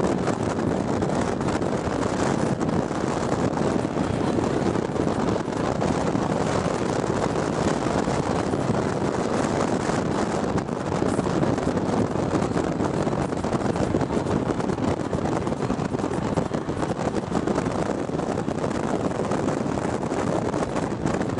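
Steady rush of wind and road noise inside a car driving along a highway at speed.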